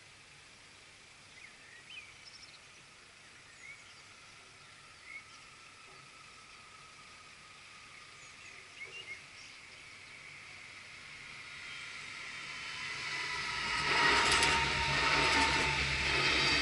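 Birds chirp over quiet outdoor background. From about ten seconds in, an electric multiple-unit commuter train is heard approaching. It grows steadily louder and passes close by near the end with a loud rush and rumble of wheels on rails.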